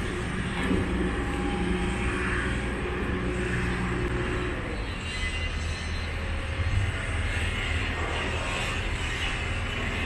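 Outdoor city background dominated by a steady low engine rumble, which thins out about halfway through.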